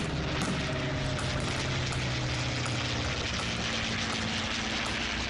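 Consolidated B-24 Liberator's four radial piston engines droning steadily as the bomber makes a low pass.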